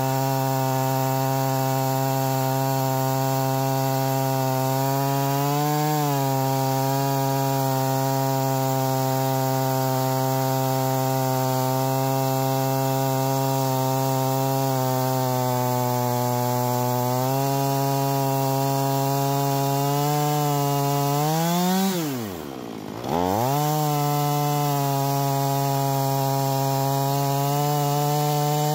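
Husqvarna 445 two-stroke chainsaw with a ripping chain running at high revs under load, ripping a log lengthwise in a chainsaw mill. The engine note wavers slightly. About three-quarters through, the revs climb, then drop sharply and come straight back up.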